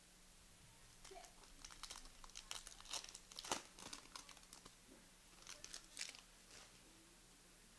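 Plastic wrapper of a trading-card pack being torn open and crinkled: a run of quick, faint crackles and tears between about one and six seconds in, with the sharpest crack near the middle.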